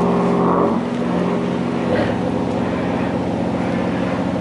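Marine diesel engine of a fishing vessel running steadily as it sits in a lock chamber. Its note shifts about a second in and again about two seconds in.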